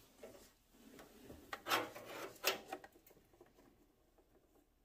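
Rubbing and scraping from an air-ride line being handled and worked into place in the engine bay, a few short strokes with the loudest near the middle, fading out near the end.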